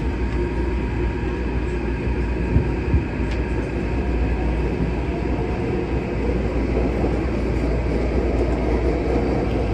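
Steady low rumble and hiss of a moving vehicle, with a couple of knocks about two and a half and three seconds in.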